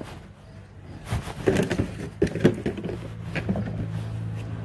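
Low steady hum of an idling engine. Over it, a run of clattering knocks and handling noises from about a second in until past halfway.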